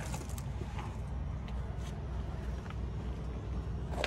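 Footsteps crunching on gravel, a few irregular steps with a sharper crunch near the end, over a steady low rumble.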